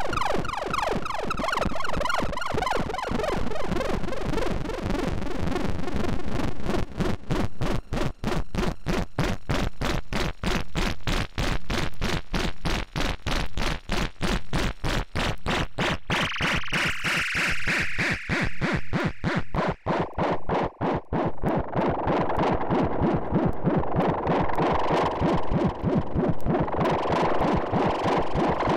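iAbyssal iOS photo-synthesizer playing a noisy, buzzy tone of oscillator and white noise, chopped into rapid even pulses by its LFO. About halfway through the pulsing gives way to a filtered band of hiss that steps down in pitch a few seconds later.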